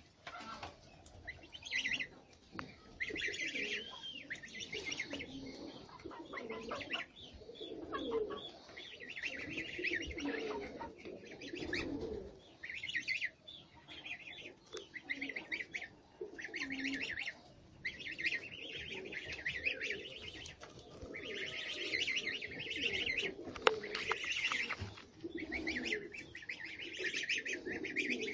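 Pigeons cooing in repeated low phrases, with high chirping from small birds mixed in throughout.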